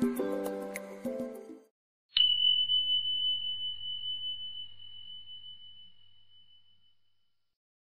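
Background music ending, then a single bell ding that strikes sharply about two seconds in and rings on one clear high note, slowly fading away over about five seconds.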